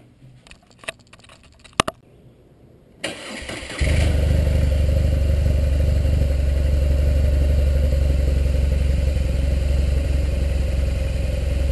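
A BMW R1200 GS Adventure's flat-twin boxer engine starts about three seconds in, after a few quiet clicks, then idles steadily at about 1500 rpm.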